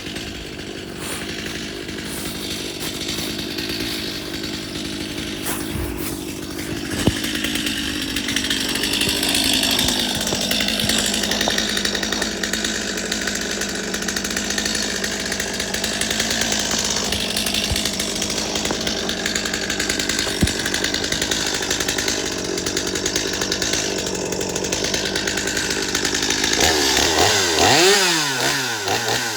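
Chainsaw engine running steadily, getting louder about a quarter of the way in; near the end its pitch swings up and down.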